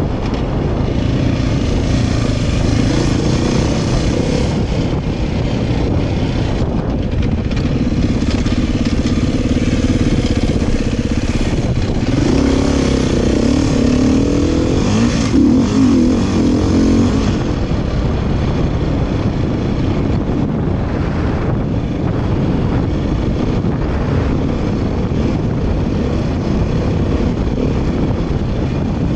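Dirt bike engine running as the bike rides along a sandy trail, its pitch rising and falling with the throttle, loudest in a stretch of revving around the middle. A dense low rumble of wind on the microphone runs underneath.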